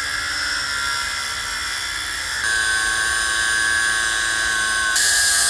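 Small high-speed rotary power tool cutting off a crimped, non-removable factory hose clamp on a motorcycle radiator hose. It makes a steady high whine that shifts pitch and grows louder about two and a half seconds in, then louder again near the end.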